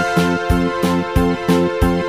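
Background music with a steady beat of about three strikes a second, under sustained keyboard-like chords.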